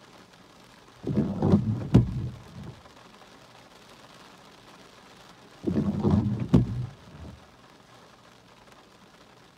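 Car windshield wipers on an intermittent setting, heard from inside the car, making two sweeps over wet glass about four and a half seconds apart. Each pass lasts about a second and a half and ends in a sharp knock, with a faint steady hiss in between.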